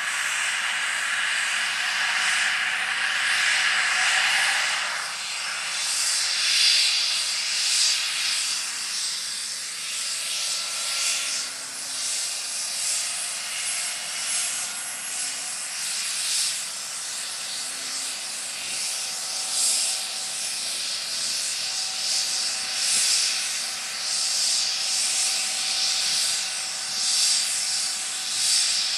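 MD 902 Explorer helicopter's twin turboshaft engines running up during start-up, a steady rushing turbine hiss with faint whine tones that drift slowly upward in pitch, under the swish of the turning main rotor.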